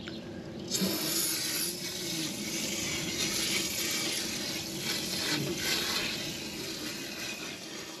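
Aerosol can of Frost King air conditioner cleaner spraying in one long, steady hiss, starting about a second in and stopping near the end, as the foam jets into a clogged soffit vent.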